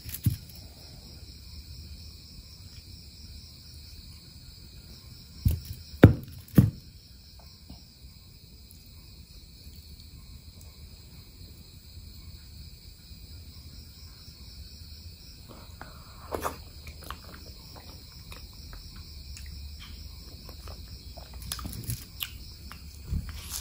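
Steady high chirring of insects, like crickets, with three loud knocks close together about a quarter of the way in and a few softer knocks later on.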